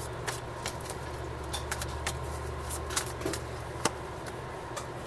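Tarot cards being handled: scattered light clicks and taps of cards, a handful over a few seconds, the sharpest near the four-second mark, over a steady low background hum.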